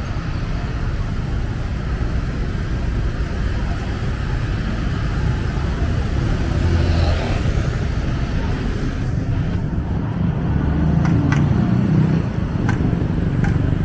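Busy city street traffic: a steady rumble of motor scooters and cars passing close by.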